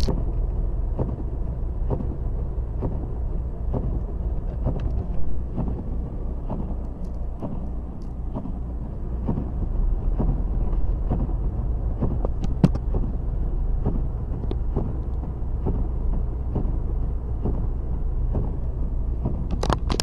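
Steady low rumble of a car's engine and tyres on a snow-covered road, heard from inside the cabin, with scattered light ticks.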